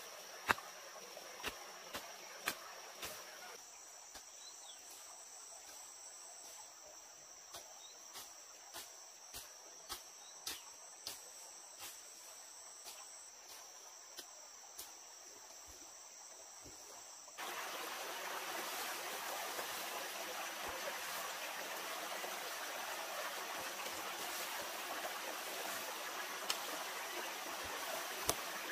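Insects trilling in one steady high tone, with a run of sharp knocks at roughly one per second. About halfway through, the sound cuts abruptly to the steady rush of a flowing stream.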